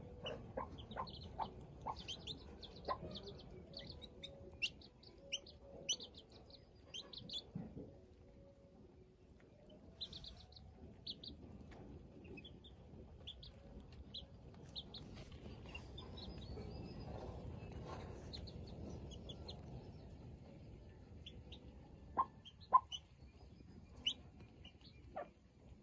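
Baby chicks peeping in short, high chirps, thick at first and then scattered, with a hen's low clucking underneath. A few sharp taps stand out near the end.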